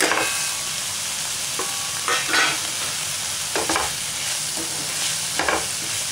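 Chopped banana flower, onion and spices sizzling in oil in a nonstick pan, with a wooden spatula scraping through them in four strokes a second and a half to two seconds apart.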